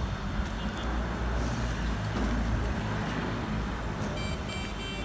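Engine of heavy machinery running with a steady low hum; a pulsing high electronic beeping, like a reversing alarm, starts near the end.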